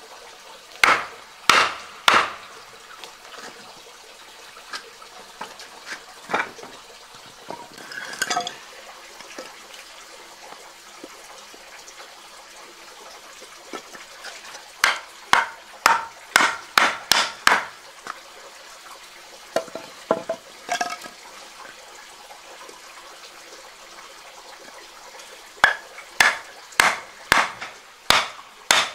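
Mallet knocking on hardwood parts of a porch swing frame, driving the joints together: sharp single knocks in groups, three about a second in, a quick run of about eight in the middle, and about six near the end.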